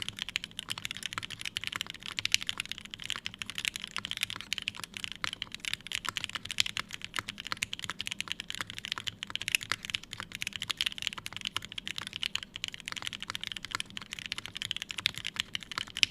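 Fast, continuous typing on a mechanical keyboard: an Emery65 with lubed and filmed Gateron Ink switches on an aluminium plate, with GMK keycaps.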